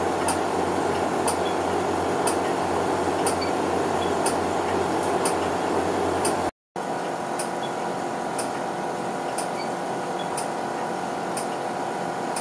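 Steady hum and whir of air-quality monitoring equipment: gas analyzers, their pumps and fans, and a wall air conditioner. A faint sharp tick comes about once a second. The sound drops out briefly about six and a half seconds in, then resumes a little quieter.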